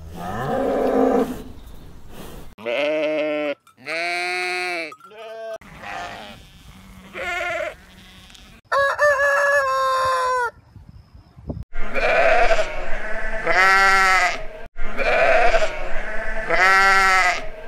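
Farm animals calling one after another in short edited clips: bleating calls, a rooster crowing in the middle, then four loud bleats in a row near the end.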